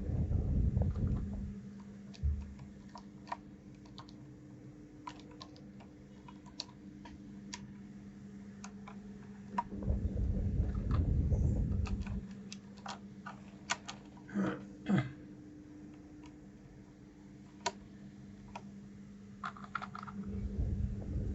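Scattered clicks and taps of keys and keycaps on a keyboard being handled while keycaps are swapped, with bouts of low rumbling handling noise and a steady low hum.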